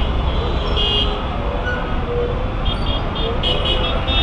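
Dense city road traffic: a steady low rumble of bus, car, motorcycle and auto-rickshaw engines, with vehicle horns honking: a short blast about a second in, then a run of quick repeated beeps over the last second and a half.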